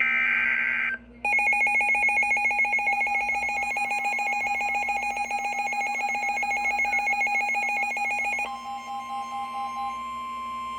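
Emergency Alert System signals: a harsh digital header burst, then the two-tone attention signal, rapidly pulsing and shrill. About eight seconds in it gives way to a single steady tone.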